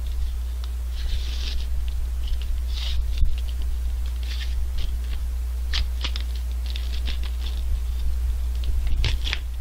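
Paper and plastic wrapper of a Cledor ice cream cone crinkling and tearing in short irregular bursts as the lid and sleeve are peeled off, over a steady low electrical hum.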